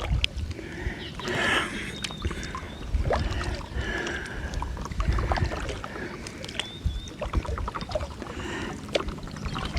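Water splashing and lapping around a paddleboard on a lake, in irregular swells over a low rumble.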